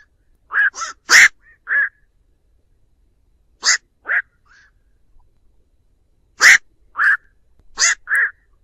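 Black-crowned night heron giving short calls, about ten in three bunches: four in the first two seconds, two near the middle and four near the end, with pauses between. These are flock calls that draw other night herons in.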